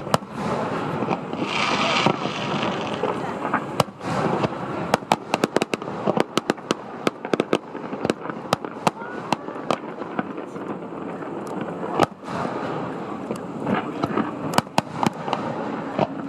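Fireworks going off: a rapid string of sharp bangs and cracks, thickest through the middle, over the rumble and hiss of earlier bursts.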